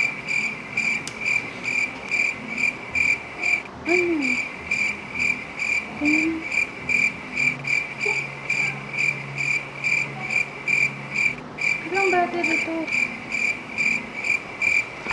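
Crickets chirping steadily, about three to four high chirps a second, with a couple of brief pauses. It is the stock 'crickets' sound effect used for an awkward silence.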